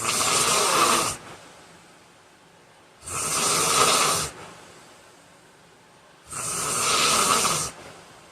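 A heavy-set man snoring loudly in his sleep: three harsh snores in an even rhythm, each about a second and a half long and starting about three seconds apart, with fainter breath sounds trailing off between them.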